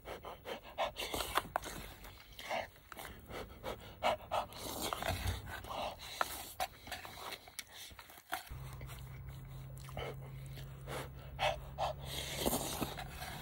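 A person eating piping-hot food, huffing quick breaths in and out to cool each mouthful, with slurps and small mouth clicks. A steady low hum joins about two-thirds of the way through.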